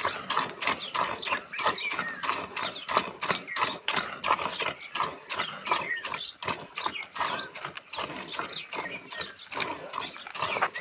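A cow being milked by hand: jets of milk squirting into a stainless steel bucket already part full of milk, in a quick, even rhythm of about three squirts a second.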